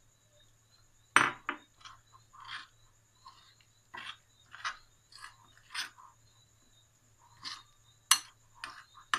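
A metal spoon scraping and clinking against a ceramic bowl in irregular strokes, stirring flour and water into a thick batter. A sharp knock comes about a second in, and another near the end.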